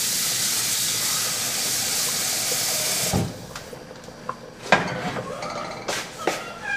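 Kitchen tap running water into a sink, shut off abruptly about three seconds in, followed by a few short knocks.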